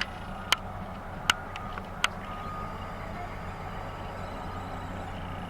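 Heavy construction machinery running with a steady low drone, with several sharp bangs in the first two seconds.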